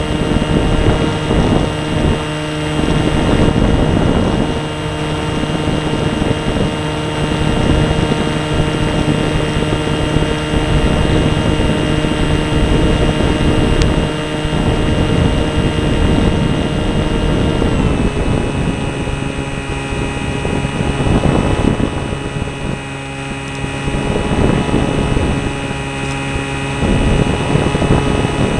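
Radio-controlled airplane's motor and propeller running steadily, heard from on board with wind rushing over the microphone. About eighteen seconds in the pitch steps down a little and holds: the motor has slowed.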